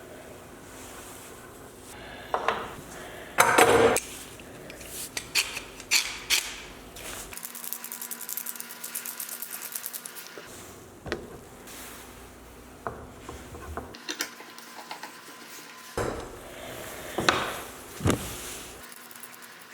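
Hand tools handled on a workbench: scattered metallic clinks and wooden knocks, with about three seconds of rapid, even scraping in the middle.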